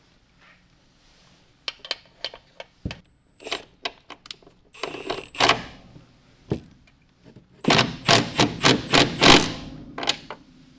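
Metal tool and bolt clicks and clatter as a few bolts are fitted by hand, with a scrape around the middle and a run of quick clicks, about four a second, near the end.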